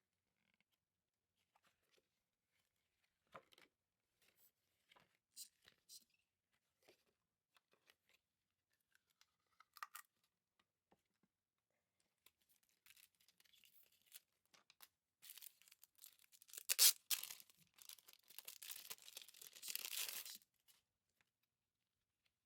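Unboxing sounds: scattered light taps and clicks of items being handled, then a longer stretch of packaging being torn and rustled, loudest near its start, that stops shortly before the end.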